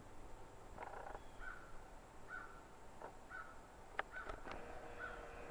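A bird calling faintly outdoors, about five short calls roughly a second apart, with one sharp click about four seconds in.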